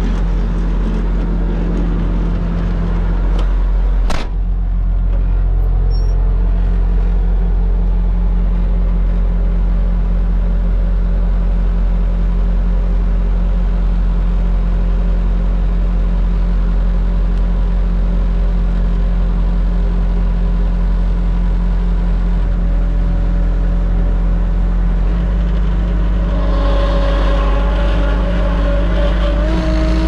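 Bobcat S650 skid steer's diesel engine running steadily while it warms up, with one sharp click about four seconds in. Near the end a higher tone comes in and rises a little.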